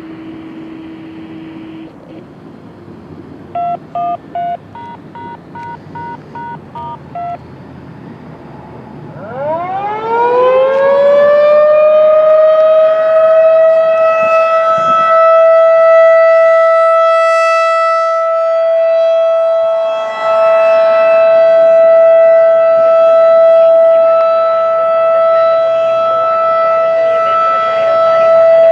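Federal Signal 2001-DC rotating warning siren winding up from a standstill about nine seconds in and settling into its steady single-tone alert at about 662 Hz, loud with strong overtones. It is preceded by a steady tone and then a quick run of touch-tone-like beeps.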